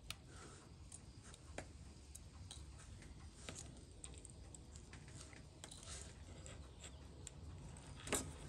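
Faint, scattered small clicks of watchmaker's tools and tiny watch-movement parts handled on the bench, over a low steady background hiss, with one sharper click about 8 seconds in.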